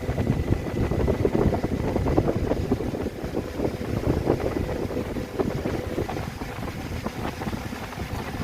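Heavy machinery running with a loud, uneven low rumble.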